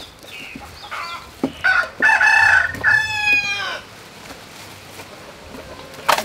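A rooster crowing once: a long, loud crow starting about a second and a half in that falls in pitch as it ends, with a few fainter short calls just before it.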